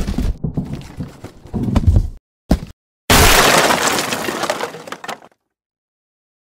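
Sound-effect wooden crate knocking and thudding several times, one short thump, then smashing apart about three seconds in: a loud shattering crash with clattering debris that dies away over about two seconds, then stops dead.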